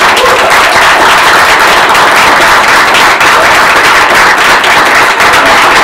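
A small audience applauding: many hands clapping loudly and steadily.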